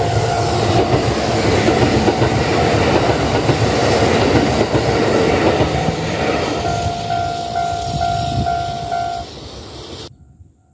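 Kintetsu 15200-series "Kagirohi" charter train passing close by, a loud rumble of wheels on rail that fades after about six seconds. A steady ringing tone is heard as well; it turns into a quick pulsing ring and stops about nine seconds in.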